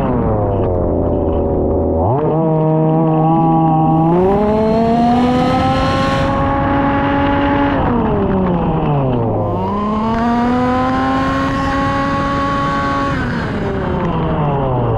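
Two-stroke petrol engine of a 1/5-scale RC Formula 1 car being driven hard, revving up and down as the throttle comes on and off. Its pitch falls, climbs sharply about two seconds in and again near four seconds, and holds high. It drops away around eight seconds, climbs again near ten seconds and falls off near the end.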